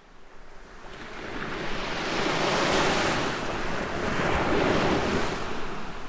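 Ocean surf, waves washing in and breaking, fading in over the first couple of seconds and then swelling and ebbing.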